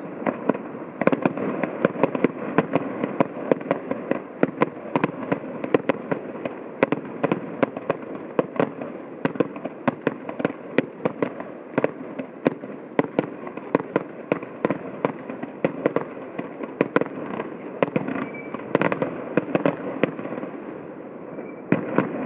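Fireworks display heard from about a kilometre away: a dense, irregular string of shell bursts, several bangs a second, over a continuous rumble, with a heavier cluster of bangs near the end.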